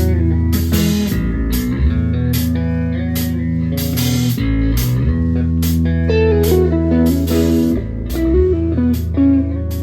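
Rock band playing: electric guitar over a steady bass line, with sharp percussion hits about twice a second.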